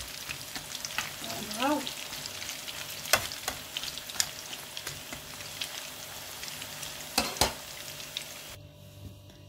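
Breaded croquettes deep-frying in a pan of hot oil: a steady, dense sizzle. A few sharp clicks of metal tongs knock against the pan, once about three seconds in and twice near seven seconds. The sizzle cuts off shortly before the end.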